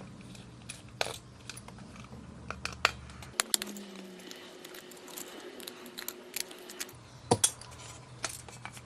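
Scattered small clicks and taps of plastic parts and a hand tool as a small battery-powered body massager is taken apart by hand.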